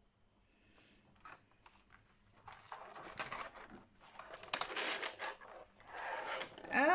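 A plastic craft-kit tray of paints and tools being picked up and handled: a few light clicks at first, then busier plastic crinkling, rattling and knocking from about two and a half seconds in.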